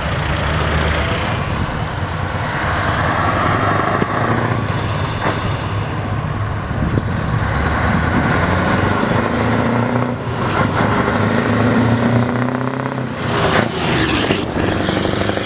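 Scania trucks and cars driving past close by, engines running and pulling away, their pitch rising and falling as they pass. The loudest pass comes near the end, as a truck goes right by.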